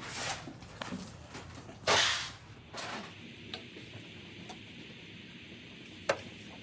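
Short scraping and rustling handling noises, the loudest about two seconds in, followed by a few faint single clicks of tools being handled.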